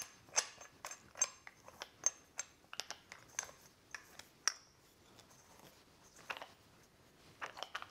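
Light metal clicks and clinks of a Neewer 2-inch end jaw grip clamp being fitted onto a light stand's upright. The clicks come in a quick run for about four and a half seconds, then a few more come near the end.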